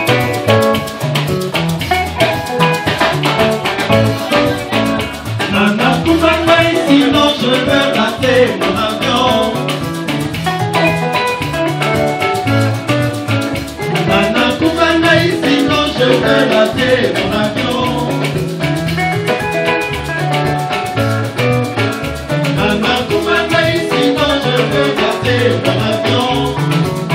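Live band playing rumba: electric guitars over bass guitar and drum kit, with male singers at the microphones.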